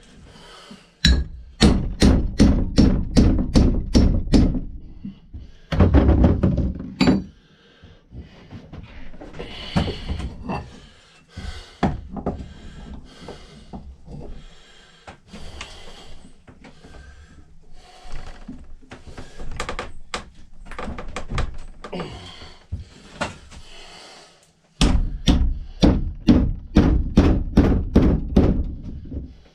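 Repeated hammer blows, about three a second, driving a chisel to knock the old wooden handle out of a rusted axe head's eye, in two long runs with a short burst between and softer taps and handling in the gap.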